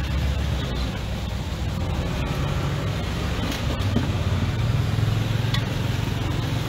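A steady low mechanical drone, with a few faint clinks of a utensil against the wok.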